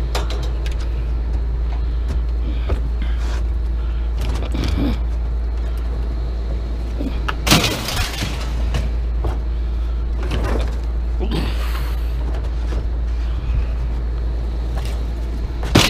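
Scrap metal and bicycles clanking and rattling as they are shifted on a pickup bed, over a steady low rumble. The loudest clatter comes about seven and a half seconds in, with another near the end.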